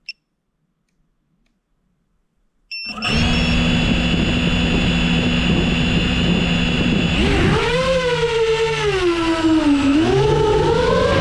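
Seven-inch FPV quadcopter's brushless motors and propellers: a single click, then about three seconds in the motors spin up to a steady whir, and from about seven seconds the pitch rises and falls as the throttle is worked in flight.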